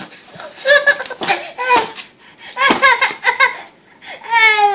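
A toddler crying in a meltdown: short choppy sobbing cries, then one long wail that falls in pitch near the end.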